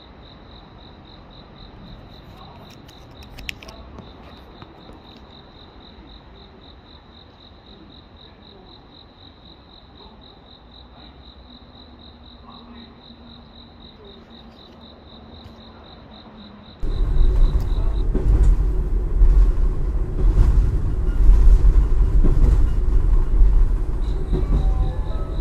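Insects chirping in a steady, high, pulsing trill over quiet station ambience. About two-thirds of the way in, a loud low rumble starts suddenly and drowns the trill, which comes back near the end.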